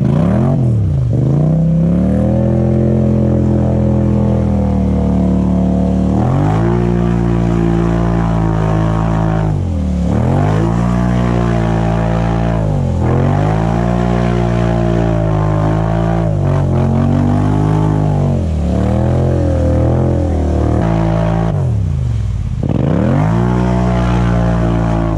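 Polaris Sportsman 850 XP ATV's twin-cylinder engine revving hard as it plows through deep water, the revs sagging and climbing back again every few seconds. Water churns and sprays around it.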